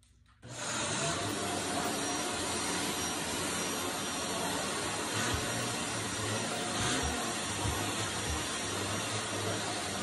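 Shark Lift-Away vacuum switched on about half a second in, then running steadily on its middle setting as it cleans carpeted stair treads.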